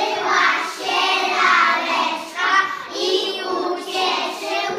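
A group of preschool children singing a song together in short phrases.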